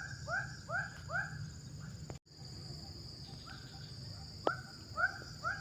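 An animal calls in a rapid series of short, hooked notes, about two to three a second, in two bouts with a pause between them, over a steady high drone of insects. A single sharp click stands out about four and a half seconds in.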